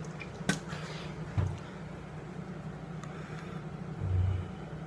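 Two short, low, closed-mouth 'mm' groans of pain from a man, one about a second and a half in and a louder one near the end, over a steady low hum. There is a sharp click about half a second in.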